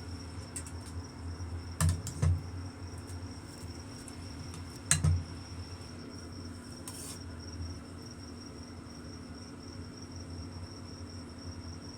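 A few knocks of a utensil against a cooking pot, a pair about two seconds in, another around five seconds and a lighter one near seven, over a steady high thin whine and a low hum.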